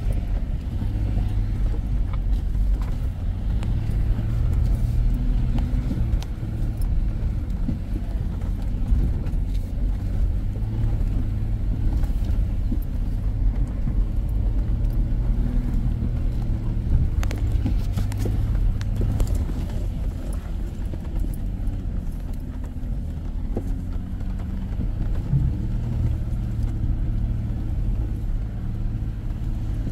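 Off-road 4x4's engine running steadily at low revs as it crawls along a rutted dirt trail, with scattered sharp knocks over the bumps.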